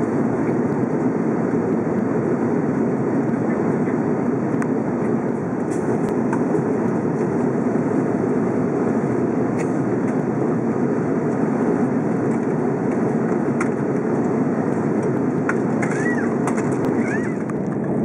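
Steady cabin noise of an Airbus A330-300 with Rolls-Royce Trent 700 engines, descending toward landing: the even rush of engines and airflow heard inside the cabin.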